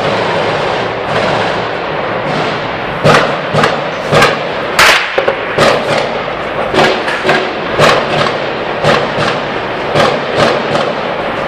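A steady rushing noise, then from about three seconds in a run of loud, sharp cracks, roughly two a second at uneven intervals: gunfire during a bombardment.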